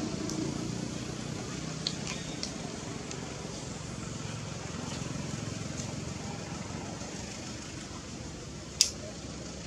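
Steady outdoor background rumble and hiss, with a few light clicks about two seconds in and one sharp click near the end.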